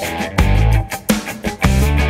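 Instrumental funk-rock music: electric guitar and heavy bass notes over a steady drum-kit beat.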